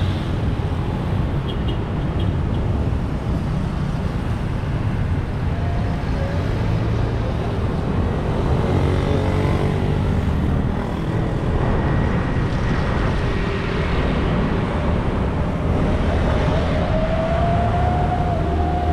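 Steady city street traffic: cars and motor scooters passing close by, with a continuous low engine rumble. A drawn-out steady tone comes in near the end.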